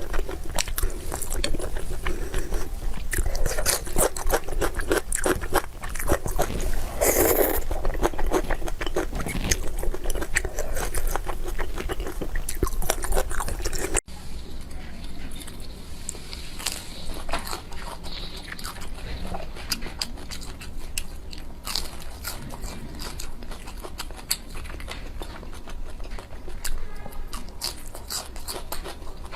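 Close-miked eating: a person biting and chewing crunchy food, with dense crisp crunches. About halfway through it cuts abruptly to quieter, sparser chewing.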